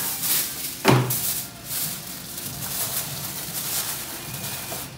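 Aluminium foil being handled: a sheet pulled from the roll and torn off with a sharp rip about a second in, then crinkled and folded around a rack of beef ribs.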